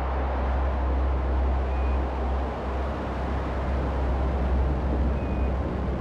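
Atlas V rocket lifting off with Boeing's Starliner: its engines give a steady, deep rumble with a rushing noise above it.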